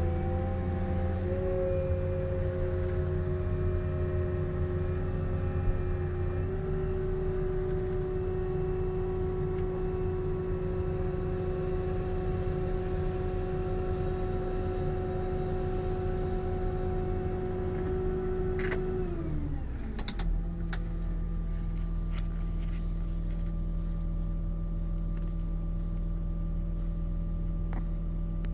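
Excavator's diesel engine and hydraulics running steadily at working speed, heard from the cab, with a steady whine; about 19 seconds in, after a click, the revs slide down to a lower idle, followed by a few sharp clicks.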